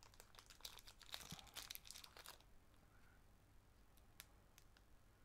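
Faint crinkling of small plastic packaging being handled and pulled open for about two and a half seconds, followed by a few soft clicks.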